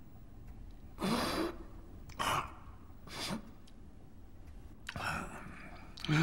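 An elderly man's slow, heavy breathing: four audible breaths spread over a few seconds, each a short rush of air.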